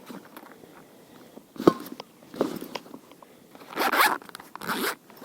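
A few short rasping strokes, the loudest about four seconds in, with a sharp click about a second and a half in.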